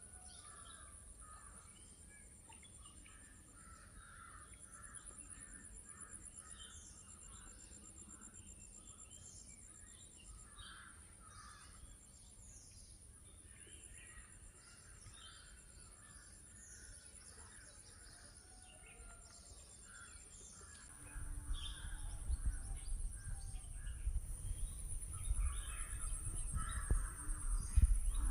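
Village morning soundscape: many birds calling and chirping over a steady high-pitched insect drone. About three-quarters of the way through, a low rumble sets in and grows louder, outweighing the birds.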